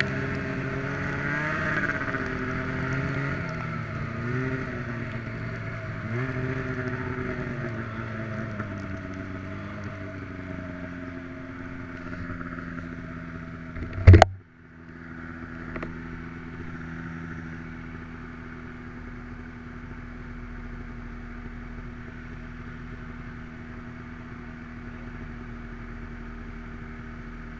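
Snowmobile engine running, its pitch rising and falling with the throttle for the first ten seconds or so. About halfway through there is a single loud thump, after which the engine runs on at a steady pitch.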